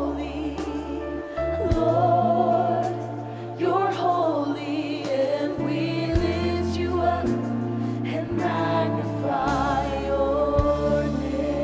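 Gospel vocal ensemble singing wordless, sustained lines with vibrato over band accompaniment, with long held bass notes changing every second or two.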